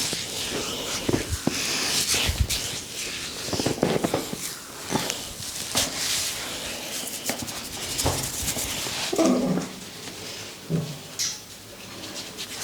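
Hands massaging an oiled head: rubbing and scrubbing through the hair, with many quick pats and slaps.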